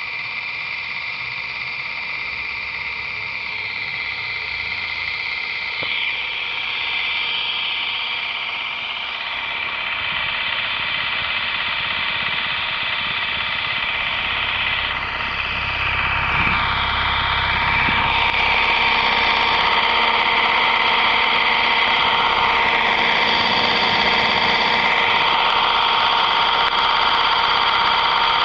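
Radio-controlled model helicopter running on the ground with its rotors spinning: a steady high motor and gear whine made of several held tones, getting gradually louder and stepping up again about two-thirds of the way through.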